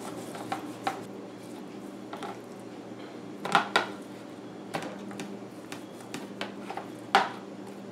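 Hands rubbing seasoning into a raw ribeye steak on a plastic plate: soft squelching of the meat with scattered light knocks and clicks of the plate, the loudest about three and a half seconds in and again near the end, over a low steady hum.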